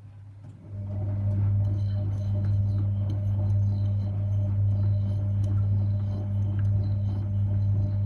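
Very old Ignis front-loading washing machine in its main wash: a low hum steps up sharply under a second in as the drum motor starts, then runs as a steady, fairly loud hum with a few faint clicks above it.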